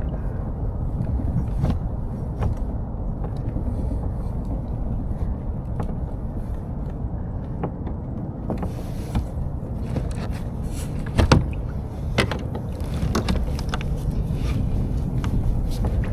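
Steady low rumble of wind on the microphone in a kayak, with scattered light clicks and knocks and one louder knock about eleven seconds in.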